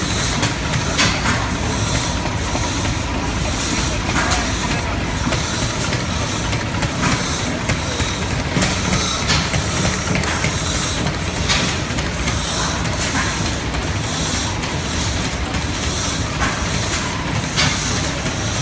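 Lister D single-cylinder stationary engine running, driving a Mather & Platt water pump and air compressor set: a steady mechanical clatter with a sharp beat every second or so and a hiss over the top.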